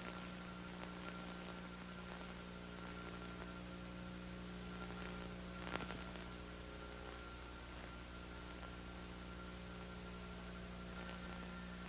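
Steady electrical hum and hiss of an old film soundtrack, with one short click about halfway through.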